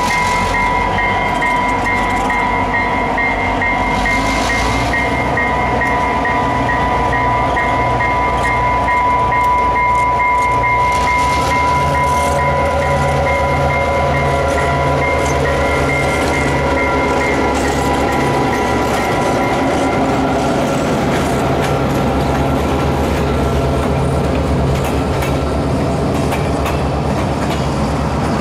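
Diesel locomotives running as a short train with a caboose pulls slowly away, wheels clicking over the rail joints. A steady high tone and a fast-repeating high ring sound over the engines and stop partway through.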